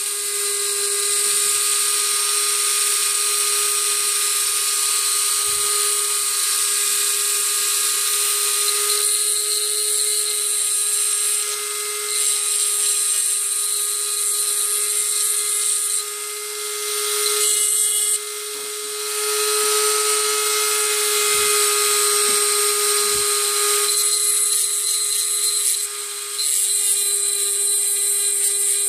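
Dremel rotary tool on a flexible-shaft (snake) attachment, running at a steady high speed with a constant whine while its bit grinds the square cylinder-window corners of a metal airsoft gearbox shell into rounded ones. The grinding hiss eases off briefly a few times as the bit is lifted or pressed lightly.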